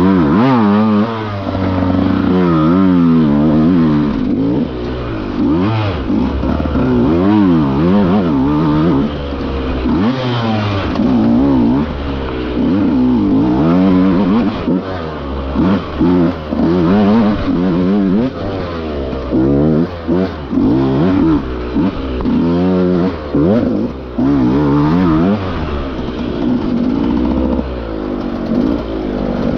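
Enduro dirt bike engine under hard riding, revving up and down continually as the throttle is worked. There are short throttle cuts and blips in quick succession, more of them in the second half.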